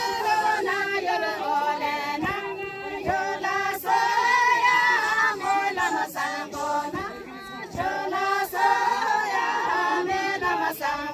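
A group of women and men singing a circle-dance song together, led by the women's voices, in lines with short breaths between them and no instruments to be heard.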